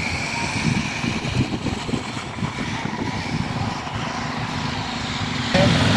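A vintage car engine running with a low, uneven rumble. About five and a half seconds in, a louder, steadier engine idle cuts in abruptly.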